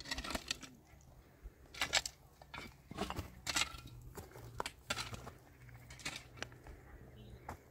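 A series of irregular sharp clinks and knocks, like handled pots or utensils, with a faint low hum in the latter half.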